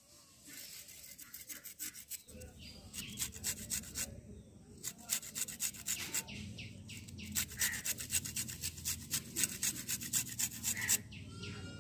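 Gondhoraj lemon rind being grated on a handheld metal grater: quick, repeated rasping strokes of the peel across the teeth, with a few brief pauses.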